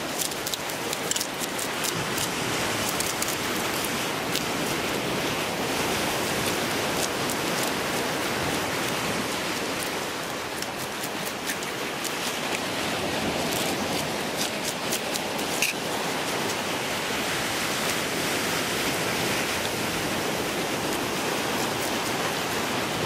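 Steady wash of ocean surf, with runs of quick scratchy clicks from a knife scraping the scales off a bream.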